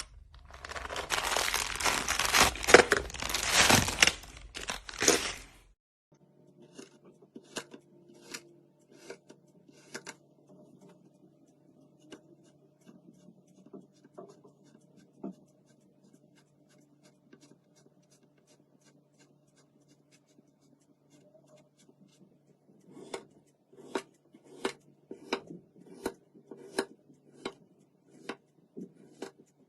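Hands making a DIY craft toy. First a loud tearing, crinkling noise for about five seconds, like tape or paper being ripped and scrunched. Then sparse light clicks over a faint hum, and near the end a run of sharp taps about one and a half a second.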